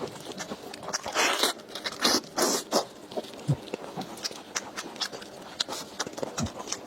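Close-up eating sounds: a person chewing with wet clicks and smacks, with a few louder crunchy bursts about a second and two seconds in.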